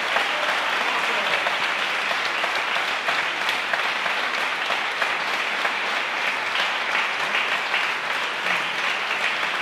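Audience applauding steadily at the end of an opera aria, dense clapping at an even level that cuts off abruptly at the end.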